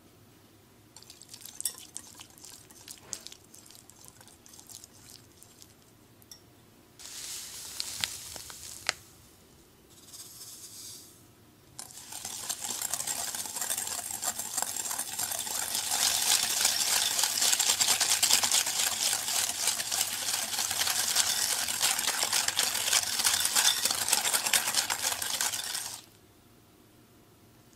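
Wire whisk working softened butter in a glass bowl with small scattered taps and clicks, then granulated sugar poured in. From about twelve seconds in, steady fast whisking of the butter and sugar against the glass, a dense scratchy rattle that stops a couple of seconds before the end.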